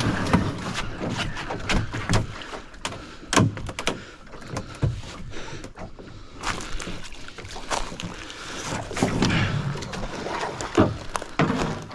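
A canoe being paddled: water splashing with the paddle strokes and a series of sharp knocks, as of the paddle striking the hull.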